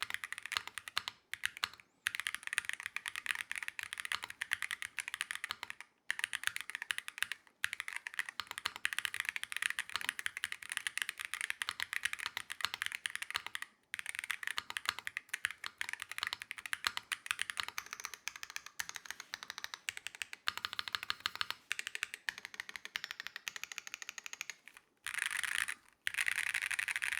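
Mechanical keyboard fitted with Wuque Studio Heart of the Ocean magnetic Hall-effect switches, typed on fast: a continuous stream of keystroke clacks broken by brief pauses, with a denser, louder run of keystrokes near the end.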